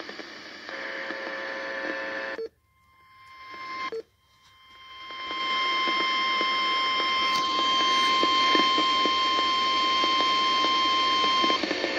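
RadioShack weather alert radio receiving an alert broadcast: static hiss that swells and cuts out twice, then a long, steady single-pitch alert tone over the static for about seven seconds. This is the warning tone that precedes the spoken alert message.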